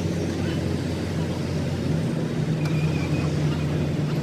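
Excavator's diesel engine running steadily, a low hum that shifts slightly in tone about halfway through.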